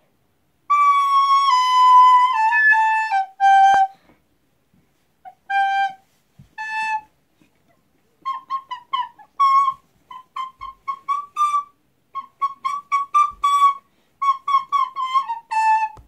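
Recorder played by hand: a slow run of held notes stepping down in pitch, two separate notes, then a fast string of short detached notes around the same pitch, ending on a lower held note.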